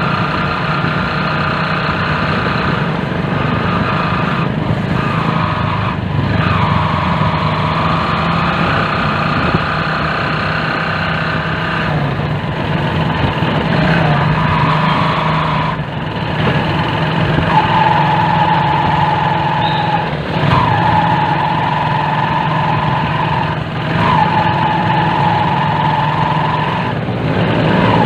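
Small motorcycle engine running while riding, its pitch shifting up and down several times with throttle and gear changes.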